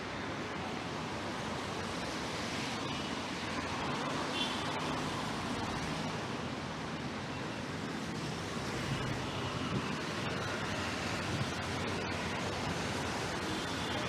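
Steady hiss of rain and wind on a city street, with faint traffic underneath.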